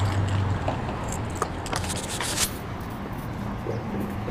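Street traffic noise, with a burst of rustling and scraping between about one and two and a half seconds in from a hand handling the phone against its microphone.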